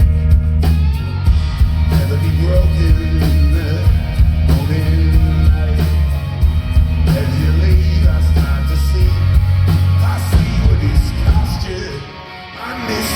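Live rock band playing a song, with a sung vocal over electric guitar, bass and drums. The band drops back briefly near the end, then comes in loud again.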